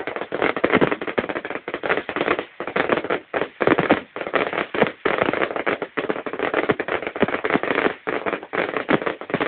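Fireworks going off in a dense, continuous barrage of rapid bangs and crackles, with a few brief dips.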